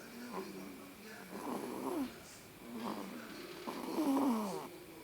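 A newborn baby snoring in his sleep: a series of short pitched snores, several of them sliding down in pitch, the loudest about four seconds in.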